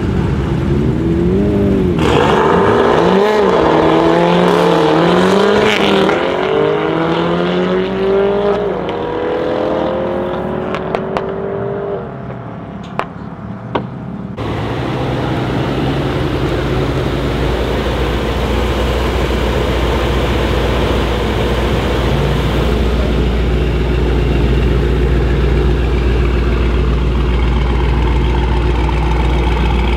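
Mercedes-AMG GT63 S 4-door's twin-turbo V8 with a decat exhaust, revs bouncing while held at the line, then launching about two seconds in and accelerating hard through several upshifts, fading into the distance. After an abrupt change, a GT63 S V8 idles steadily and close by, with a deep low rumble.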